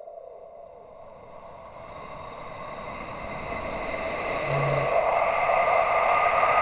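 Synthesized cinematic riser or tension builder: a hissing, whirring noise texture that swells steadily louder over several seconds.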